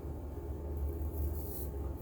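Straight razor scraping through lathered stubble in two short strokes about a second in, over a steady low hum.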